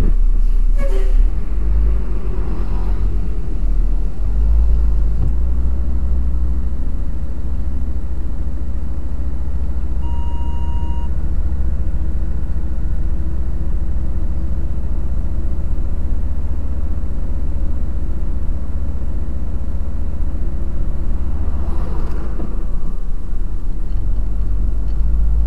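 Truck engine running with a steady low rumble, heard from inside the cab while driving slowly. A short beep sounds about ten seconds in.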